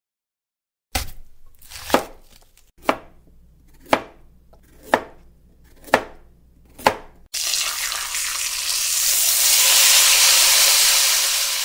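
Knife chopping on a cutting board, seven sharp strokes about a second apart, then a loud sizzle like food hitting a hot pan that swells and then fades away near the end.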